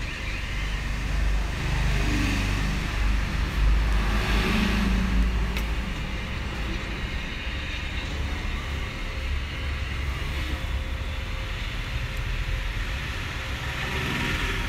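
A steady low rumble of background noise, heaviest in the first six seconds, with a faint hiss that swells briefly twice.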